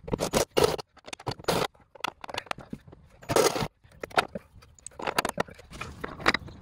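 Irregular scraping and knocking on the car's sheet-metal floor pan, in short bursts of uneven length with gaps between them.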